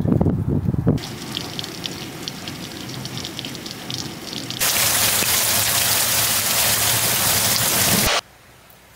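A low rumble for about the first second, then rain falling with fine drop ticks. From about halfway it becomes a much louder, steady heavy-rain hiss, which cuts off suddenly shortly before the end.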